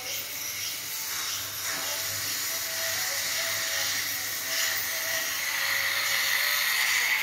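Dental suction tip hissing steadily as it draws air and saliva from the mouth, getting a little louder near the end.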